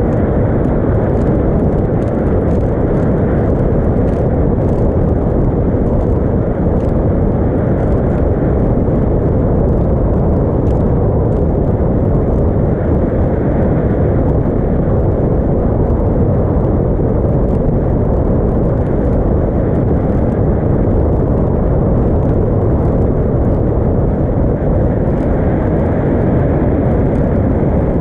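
Steady, loud rush of wind and water noise from a small motorboat under way across choppy water, with faint light ticks scattered through it.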